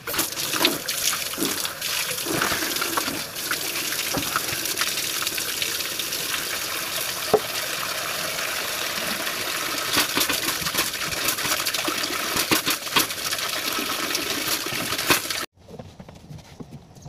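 Water splashing and sloshing with scattered knocks as clothes are washed by hand in water. It stops abruptly about fifteen seconds in.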